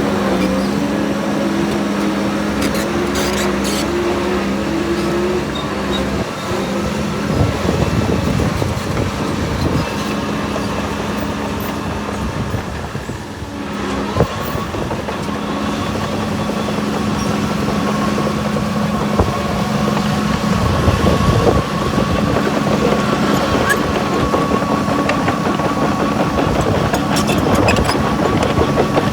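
Heavy diesel earthmoving machine's engine running steadily under load. A steady high whine joins about halfway through.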